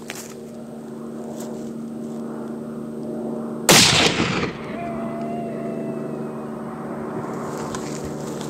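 A single 25-06 rifle shot about three and a half seconds in, very loud and sharp, its report dying away within about a second.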